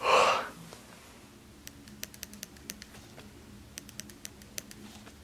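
A short breath-like rush of noise, then scattered light clicks of typing on a computer keyboard, a few keystrokes at a time with irregular gaps.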